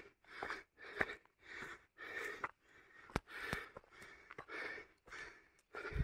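A person breathing hard in quick, even breaths, about two a second, as from exertion climbing on foot, with a few sharp ticks in between.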